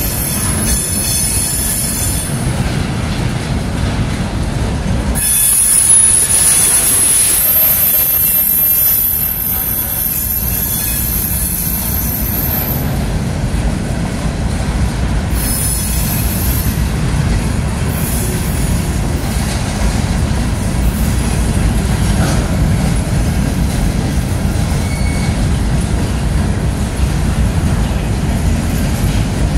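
Freight cars (empty centerbeam flatcars, then a covered hopper and boxcars) rolling past with a steady rumble of steel wheels on rail. A high-pitched wheel squeal comes and goes, loudest from about five to thirteen seconds in and again briefly a few seconds later.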